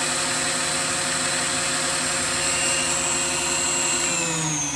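Electric RC helicopter's brushless motor and spinning rotor head holding full headspeed with a steady whine, after the ESC bailout has spooled the head straight back up from throttle cut. About four seconds in the whine starts to fall as the rotor winds down.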